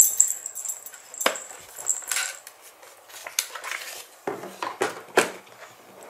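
Hard plastic clicks and knocks from a robot vacuum's dust bin and body being handled and fitted together: a few separate knocks, then a quick run of them about four seconds in.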